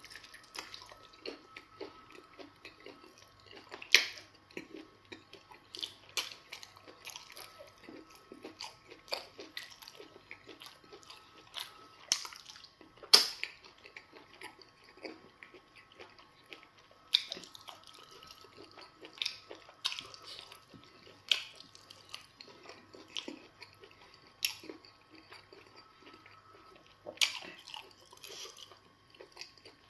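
Close-up wet eating sounds of semo fufu dipped in spinach soup and eaten by hand: sharp, irregular lip smacks and finger sucking every second or two, with soft chewing in between.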